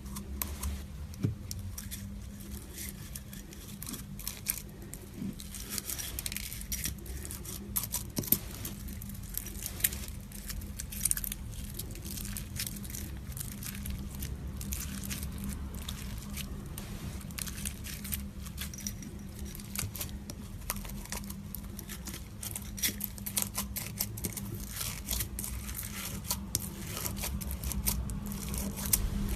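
Slime being squeezed and stretched by hand, with many small clicks and crackling pops, over a steady low hum.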